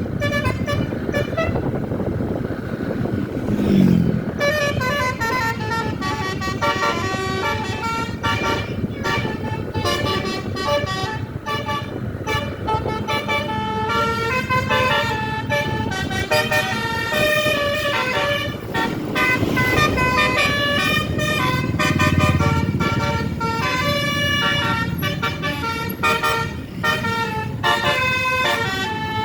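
A bus's Basuri telolet 36-note musical air horn playing a fast tune of quickly changing notes, several sounding at once. The bus's engine and road noise run underneath.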